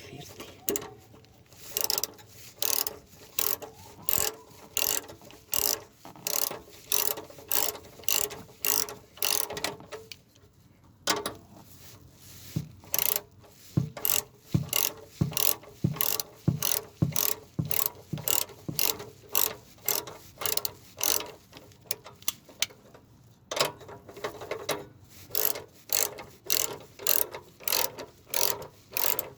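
Hand ratchet wrench with a 13 mm socket clicking in quick repeated back-and-forth strokes, about two to three a second, as it works a nut on an exhaust bracket. The strokes pause briefly twice.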